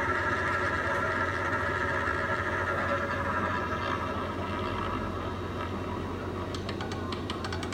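Roulette spin sound effect from a fixed-odds betting terminal: a steady rolling whir of the ball around the wheel that slowly fades, then a quick run of clicks near the end as the ball bounces and settles into a pocket.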